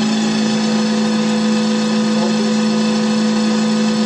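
Electromagnetic engine and generator running steadily under the load of a bank of incandescent bulbs: a constant hum with one strong low tone and many steady overtones above it.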